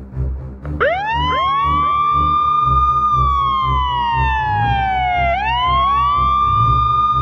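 Emergency-vehicle sirens start wailing about a second in, several overlapping: each rises quickly, holds, slowly falls, then rises again, over background music with a steady low beat.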